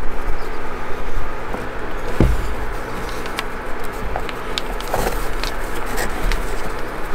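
A steady low rumble and hum throughout, with a few small clicks and rubs as a bootlace is pulled through the metal eyelets and hooks of a leather work boot.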